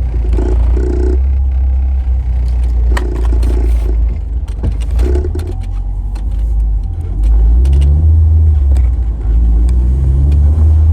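Car engine pulling under acceleration, heard from inside the cabin as a deep rumble. The revs climb twice in the second half, with scattered rattles and clicks earlier.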